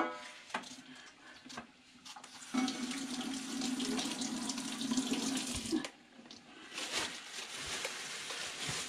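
Tap water running into a sink for a few seconds, shutting off abruptly, then running again near the end. A few light clicks come before the water starts.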